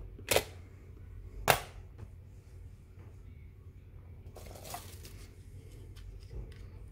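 Two sharp clicks about a second apart, then a brief rustle a few seconds later, over a steady low hum.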